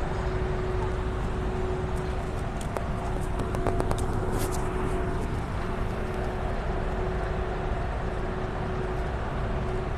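Steady low outdoor rumble with a constant mid-pitched hum, and a quick run of sharp clicks about two to four and a half seconds in, as the handheld phone is moved.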